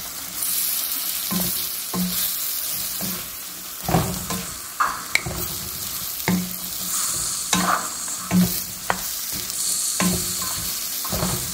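Chopped tomatoes, onions and green chillies sizzling in oil in a steel pan, stirred with a wooden spatula that scrapes and knocks against the pan at irregular moments over a steady frying hiss.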